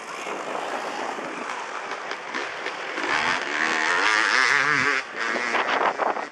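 Off-road dirt bike engine revving up and down as the bike labours through mud, its pitch wavering; loudest between about three and five seconds in.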